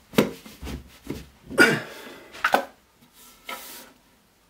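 Wooden shelf being knocked and pushed onto floating-shelf bracket rods in the wall: a series of sharp wooden knocks, then a softer rub near the end.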